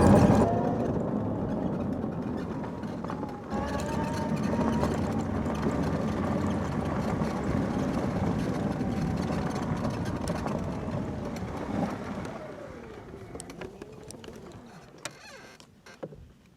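An engine running steadily, then fading away over the last few seconds.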